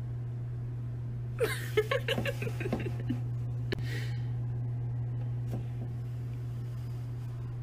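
A person's brief stifled laughter, a quick run of short breathy bursts lasting under two seconds, over a steady low hum.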